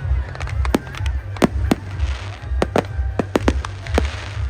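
Fireworks display: a dozen or so sharp, irregularly spaced bangs and cracks of bursting shells, over a low pulsing rumble with music underneath.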